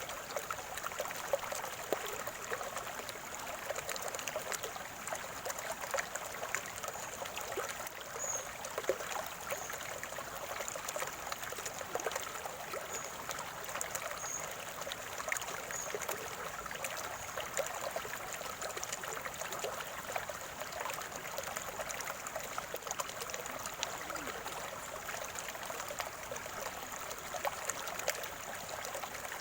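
Shallow stream water trickling and gurgling steadily over stones, a constant bubbling wash with many small splashes.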